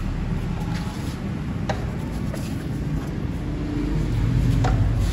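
Steady low mechanical rumble, with a few light clicks.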